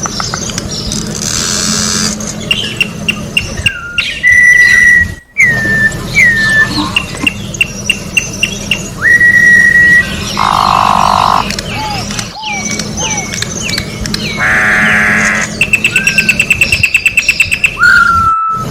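Campo troupial (corrupião) singing a varied, loud song: clear whistled notes, short repeated notes and rapid trills. A couple of harsh buzzy notes come about halfway through and again toward the end.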